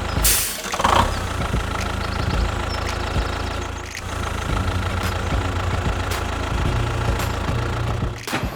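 Miniature DIY tractor's engine sound running steadily, with a brief noisy burst just after the start and a short dip about four seconds in.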